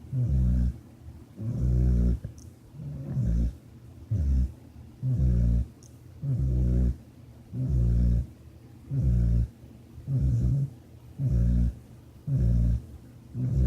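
Snoring: a steady run of low, rasping snores, about eleven of them, one a little over a second apart, with short quiet breaths between.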